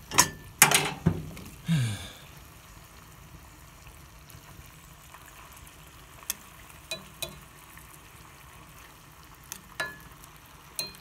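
Beaver meat frying in hot oil in a cast iron skillet, a steady sizzle. A metal utensil stirring the pieces knocks and clinks against the pan several times in the first two seconds, then clicks now and then.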